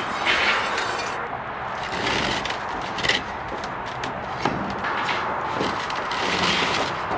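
Several sharp knocks of wooden blocks and a metal bar being handled on a steel deck, over a steady background hiss.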